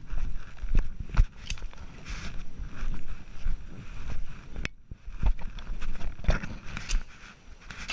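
Footsteps along a wooded dirt trail and brushing through leafy undergrowth: uneven crunches and swishes over low thumps.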